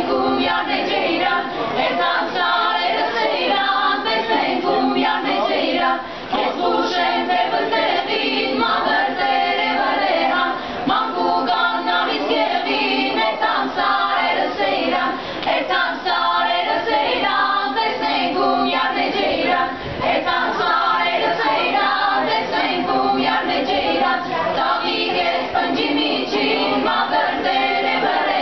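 Women's vocal ensemble singing a cappella in several parts, phrase after phrase with brief breaks between them.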